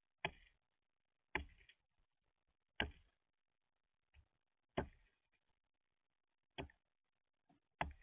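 Northern flicker pecking at peanuts in a wooden feeder tray: sharp, single knocks of its bill against the wood, about eight in irregular succession, roughly one a second.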